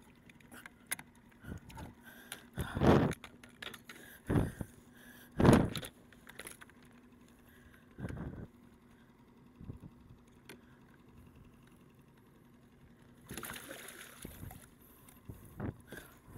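Gaffed halibut being brought in against the side of a fishing kayak: a string of knocks and bumps on the hull, the loudest about five and a half seconds in, with small clicks and rattles of tackle between them and a longer scuffle near the end.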